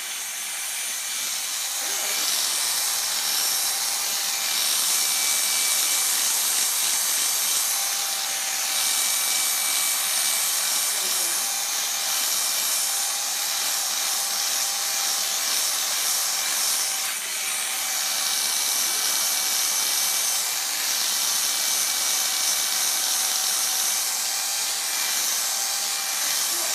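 Electric dog grooming clippers running with a steady buzz as they work through a miniature schnauzer's curly coat; the sound grows a little louder about two seconds in.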